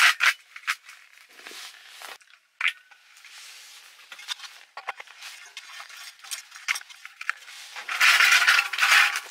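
Light clicks and knocks of a propane cylinder being handled and set into its plastic base stand. About eight seconds in there is a loud hiss lasting just over a second as a camp stove is screwed onto the cylinder's valve, propane escaping briefly while the threads seat.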